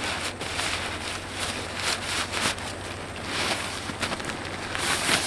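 Nylon tent stuff sack rustling and crinkling as it is handled, in irregular swishes, the loudest just before the end.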